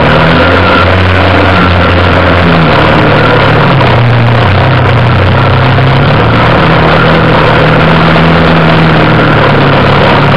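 ATV engine running close and loud as the machine travels the trail. Its pitch rises about two and a half seconds in, holds steady, then drops near the end, over a constant rushing noise.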